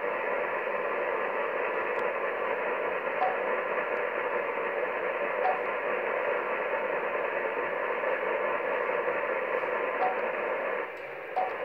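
Codan NGT SRx HF transceiver's receiver hiss: steady band noise on an open SSB channel coming through the radio's speaker. A few faint short key beeps sound as its buttons are pressed, and the hiss drops near the end.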